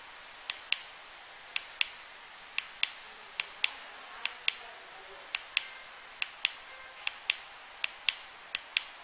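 Sharp clicks in pairs, about a quarter-second apart, with a pair roughly every second, from a digital fireworks firing system as the remote's buttons are pressed one after another to fire the single-channel receivers in turn.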